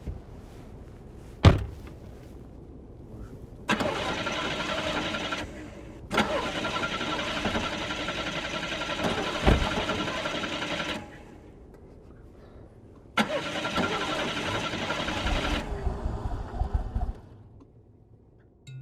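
A single sharp knock, then a car engine being started in three separate bursts of cranking and running that each start and stop abruptly. The middle burst is the longest, and a low rumble fades out after the last.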